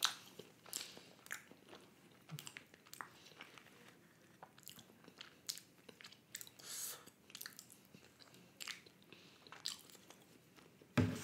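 Close-miked mouth sounds of eating soft chocolate lava cake: faint, scattered wet clicks and smacks of chewing, with a wooden spoon now and then scraping the foil cup.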